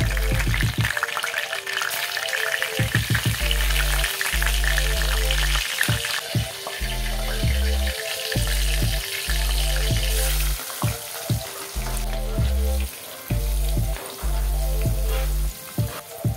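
Hot oil sizzling and crackling with curry leaves, green chillies and mustard seeds in a pan (a tadka), loudest for the first several seconds and then softer. Background music with a repeating bass line plays underneath.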